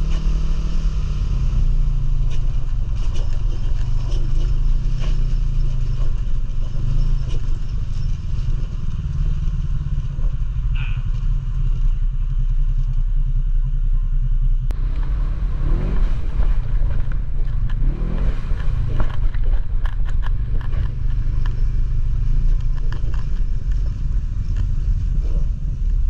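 ATV engine running under way, its pitch rising and falling with the throttle, with frequent knocks and rattles from the ride over rough ground.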